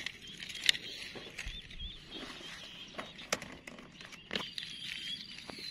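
Birds chirping in the background in short, wavering notes, with a few sharp clicks scattered through.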